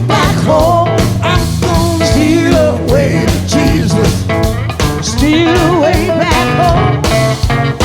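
Live band performing a blues-gospel spiritual: singing with a wavering, drawn-out melody over guitar and drums.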